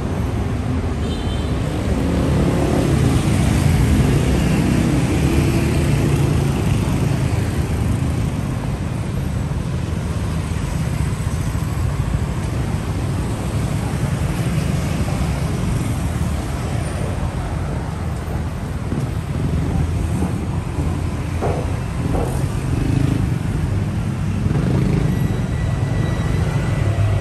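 Road traffic: motor vehicles running past in a steady stream, with one engine's low hum standing out a few seconds in.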